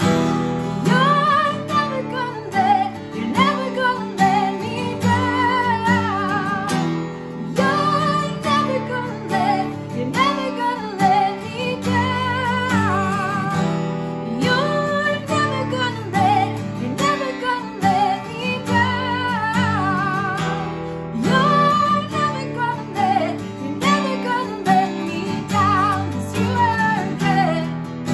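A woman singing a worship song, holding notes with vibrato, while strumming a Guild acoustic guitar.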